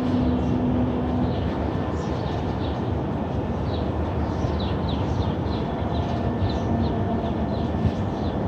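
An unexplained low, steady rumbling drone from the sky, with a held horn-like tone about the first second and a higher one briefly in the second half. Small birds chirp over it throughout.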